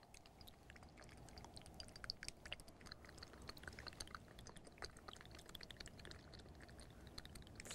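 Near silence: a faint room hush with a low hum and scattered, irregular soft clicks and ticks.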